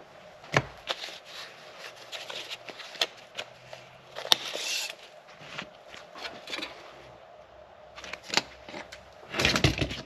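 Hand tools and a length of rubber hose being handled on a workbench: scattered sharp clicks and taps, with short scraping rustles, the loudest of them just before the end.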